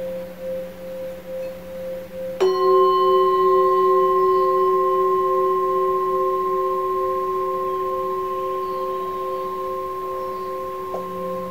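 Himalayan singing bowls ringing: one bowl's tone carries on with a steady pulsing waver. About two seconds in, a small hand-held bowl is struck with a mallet and rings out loud with a low and a higher tone together. It fades slowly and is stopped with a light tap near the end.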